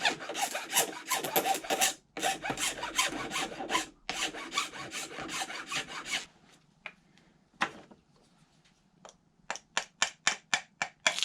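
Hand file scraping cured flashing off the edge of a mold in rapid back-and-forth strokes. The strokes run almost continuously for about six seconds with two brief pauses, then come singly, then as a quick run of about eight short strokes near the end.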